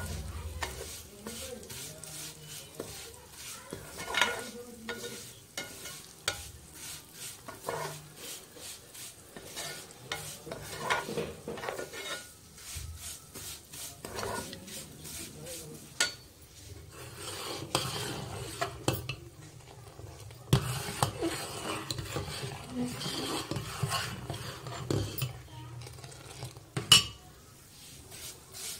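Fine vermicelli (seviyan) being stir-fried in desi ghee: a spoon scraping and tapping against the pan in irregular clicks, a few knocks louder than the rest, over a faint sizzle.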